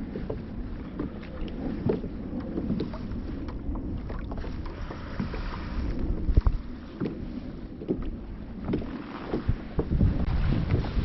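Wind rumbling on the microphone aboard a fishing kayak, with scattered small knocks and clicks; one louder knock about six seconds in.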